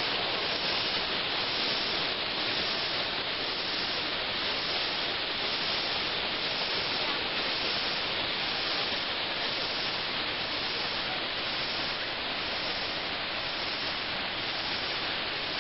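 Waterfall pouring: a steady rushing hiss of falling water that stays even throughout.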